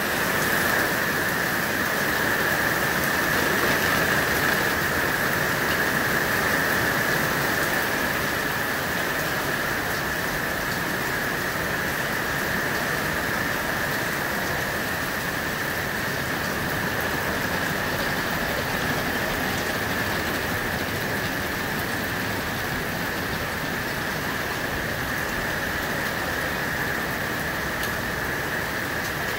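Steady rain falling on wet pavement: a constant hiss, a little louder in the first few seconds.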